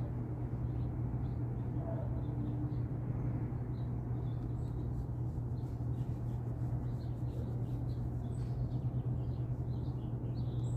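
A steady low hum, like a motor or engine running, with faint, scattered bird chirps over it.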